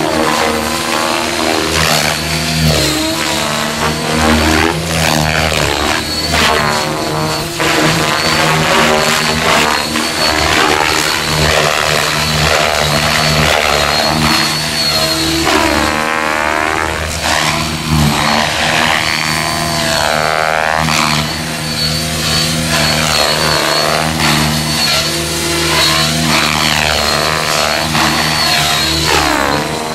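Align T-REX 700E electric RC helicopter with a CNC M1 main drive gear in flight: steady main-rotor blade sound with a high, even whine from the motor and drivetrain, its tone shifting as the helicopter moves about.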